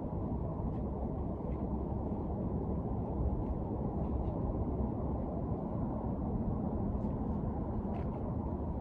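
Steady low rumbling noise with a few faint ticks.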